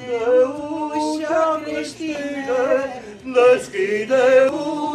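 A man and a woman singing a Romanian colind (Christmas carol) together, in held notes with wavering pitch.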